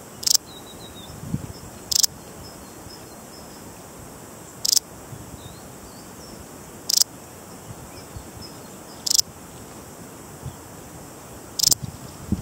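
Balearic saddle bush-cricket (Parasteropleurus balearicus) stridulating: short, high-pitched chirps about every two to two and a half seconds, six in all, the last one a quick double.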